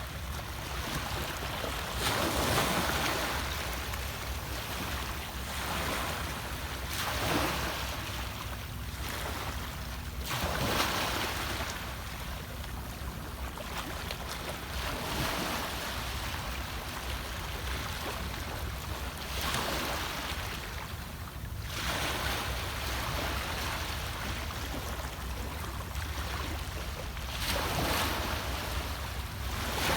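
Sea waves breaking and washing in, the surf swelling to a louder surge every four or five seconds.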